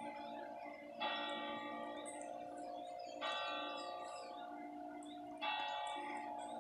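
Church bell tolling slowly: three strokes about two seconds apart, each ringing on and fading before the next.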